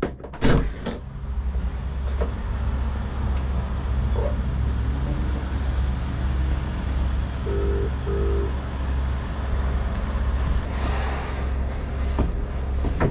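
Car-park traffic: a steady low vehicle rumble, with a knock about half a second in and two short beeps about eight seconds in.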